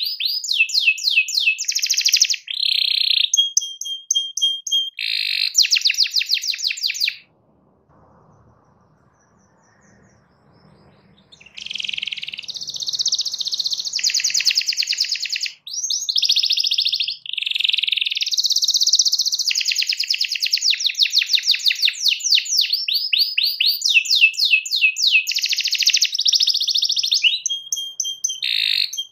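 Domestic canary singing: long runs of fast, high repeated notes and rolling trills. The song breaks off about seven seconds in, stays silent for about four seconds, then starts again and runs on.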